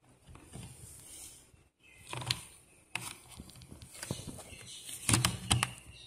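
A 2.5-inch SATA solid-state drive being pushed into a metal laptop drive caddy: handling sounds and several short clicks and knocks, the loudest cluster about five seconds in, as the drive seats in the caddy's connector.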